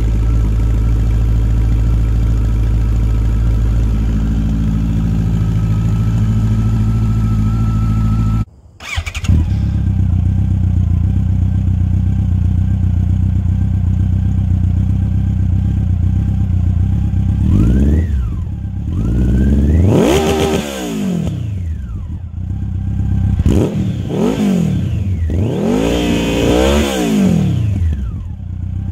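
2012 Yamaha FJR1300's inline-four running through its stock header, cut to a 4-2 dual exhaust, into twin tri-oval mufflers with the baffles in. For about eight seconds it idles steadily on a cold start. After a short break it idles again, hot, with several quick throttle blips in the second half, each a revving rise and fall.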